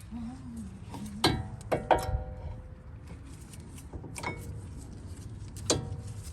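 Metal brake parts and tools clinking against each other as a brake caliper is refitted over new pads: a handful of sharp clinks that ring briefly, two close together near two seconds in and single ones around four and six seconds.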